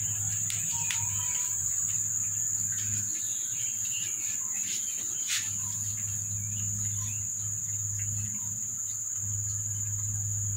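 A cat lapping water from a plastic bowl: small, irregular wet ticks, several a second. Underneath runs a loud, steady high-pitched insect drone, with a low hum that comes and goes.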